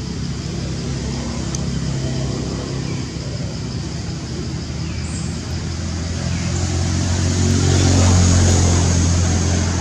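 A motor vehicle's engine running, a steady low hum that builds to its loudest about eight seconds in and then eases slightly.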